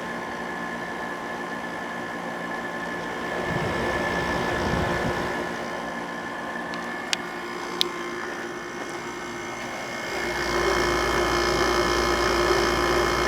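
Kenmore 5000 BTU window air conditioner running: its fan blowing and the compressor humming steadily, with two faint clicks about seven and eight seconds in. About ten seconds in, a low rumble joins and the sound grows louder.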